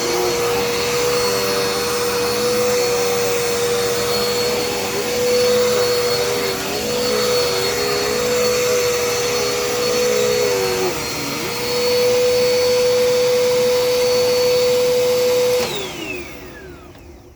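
Dirt Devil Endura Reach upright vacuum cleaner running, a steady motor whine with a lower tone that wavers as it is worked over the floor. Near the end it is switched off and the whine falls in pitch as the motor winds down.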